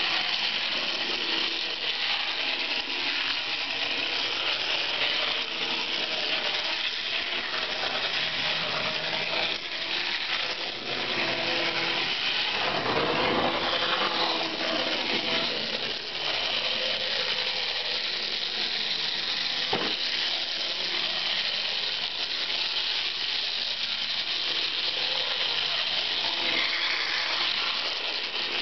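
Model trains running on a layout: a steady whir of electric motors and gear drives with metal wheels clicking over the track. The noise swells briefly about halfway through, as the yellow model trolley runs through a tunnel.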